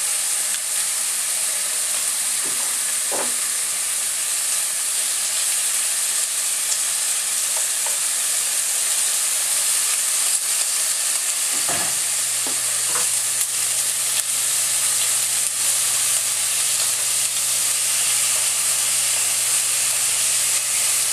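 Thin pork slices sizzling steadily in a nonstick frying pan, with a few light taps of wooden chopsticks turning the meat. A low steady hum comes in about halfway through.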